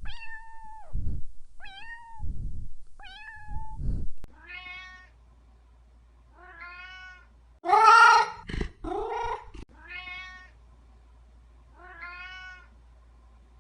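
Cat meowing over and over: a few short calls with low thuds in the first four seconds, then a series of long, arching meows, the loudest two about halfway through.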